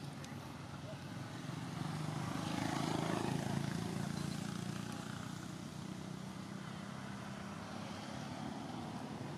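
Engine noise from a passing motor vehicle, growing louder about two seconds in, loudest about three seconds in, then fading, over a steady low engine hum.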